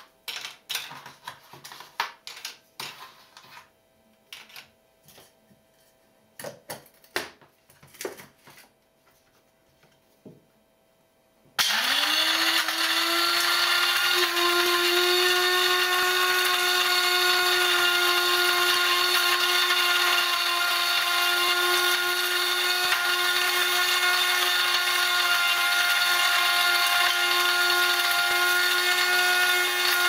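Small pieces clicking and knocking as they are dropped into the steel bowl of an electric blade coffee grinder. About twelve seconds in, the grinder's motor starts, rises quickly in pitch and settles into a steady high whine as it grinds.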